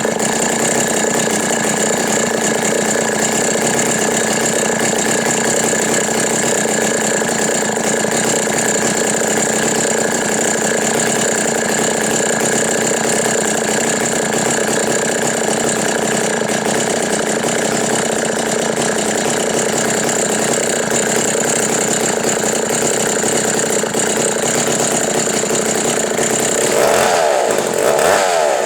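Custom-built McCulloch gear-drive chainsaw engine running steadily at a constant speed. Near the end its pitch rises and falls as it is revved.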